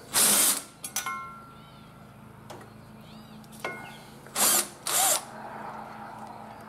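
Cordless power driver spinning bolts out of a mower's steel belt-guard plate in three short bursts: one at the start and two close together about four and a half and five seconds in, with a few light clicks between.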